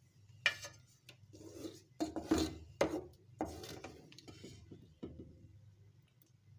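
A metal spoon scraping and knocking against cooking pans as thick gravy and chicken are spooned out onto rice, in a handful of short, irregular clatters.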